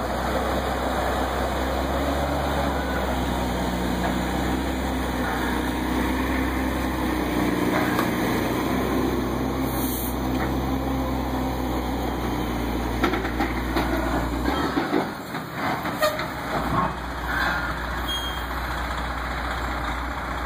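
Heavy truck's engine running steadily under load as it slowly moves a wooden building on dollies, with a short air hiss about halfway. About two-thirds of the way in the engine note drops briefly and picks up again, and several knocks and clanks follow.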